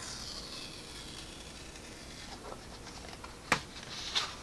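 Soft rustling of product packaging being handled, with a single sharp click about three and a half seconds in and a few light rustles near the end.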